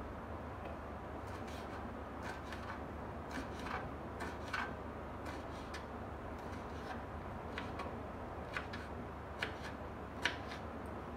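Kitchen knife chopping green bell pepper on a wooden cutting board: irregular light taps of the blade striking the board, with a sharper knock near the end, over a steady background hiss.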